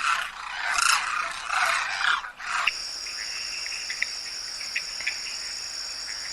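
A dense, wavering chorus of animal calls, then an abrupt change about two and a half seconds in to a steady, high-pitched insect trill with a few short chirps under it.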